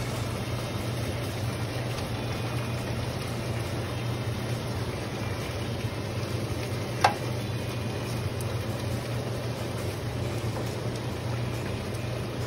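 Sauce simmering in a hot skillet, a light even hiss over a steady low hum. One sharp clink about seven seconds in.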